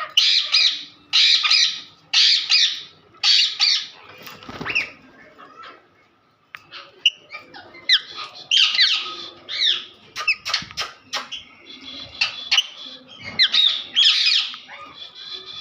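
Pet parrots screeching, harsh squawking calls in quick succession. The calls fade and break off briefly about six seconds in, then start up again thickly.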